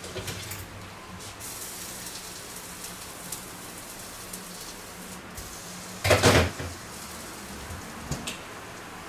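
Cookware being handled on a kitchen stove: light clicks and knocks of a grill pan and utensils, with one louder clatter about six seconds in, over a steady low hum.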